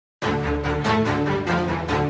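Theme music with held chords over a steady pulsing beat, starting suddenly just after the start.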